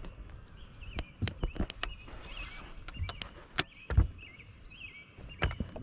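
Scattered sharp knocks and taps, the loudest about three and a half and four seconds in, with a bird chirping faintly in the background.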